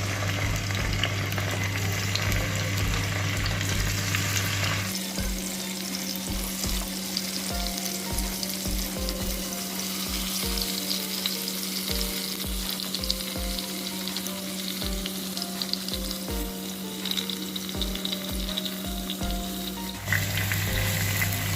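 Marinated chicken pieces sizzling as they fry in hot sunflower oil in a non-stick pan, with scattered soft knocks as pieces are handled.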